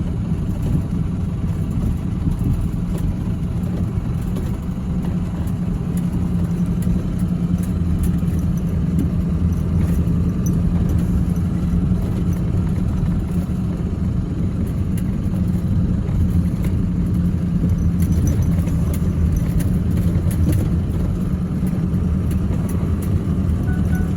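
2016 GMC Sierra pickup, loaded with a tractor, driving over a rough, muddy bush road: steady low engine and road drone with scattered rattles and knocks throughout.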